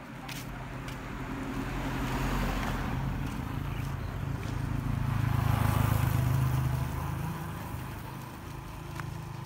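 A motor vehicle passing on the road: its engine hum grows louder, peaks about six seconds in, then fades.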